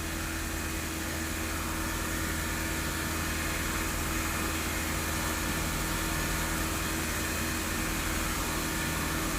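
2011 Audi A3 2.0T's turbocharged four-cylinder engine running steadily at the fixed speed held by the ECU during a scan-tool evap system test.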